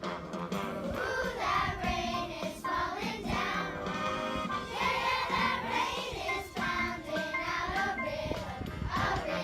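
Music: a song sung by a chorus of children's voices over an instrumental accompaniment.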